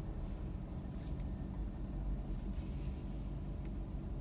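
Steady low rumble inside a car cabin, with the car standing still in traffic: engine and surrounding traffic noise.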